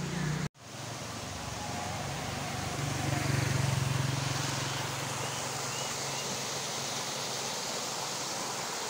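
Steady rush of spring water flowing out of a concrete outlet into a small stream, with a low rumble underneath that swells a few seconds in. The sound drops out briefly about half a second in.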